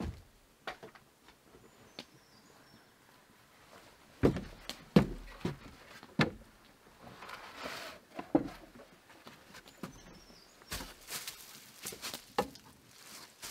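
Several knocks of wood on wood as a wooden board is handled and leaned against a log wall, clustered from about four seconds in, then footsteps on bare ground near the end. A bird chirps faintly twice.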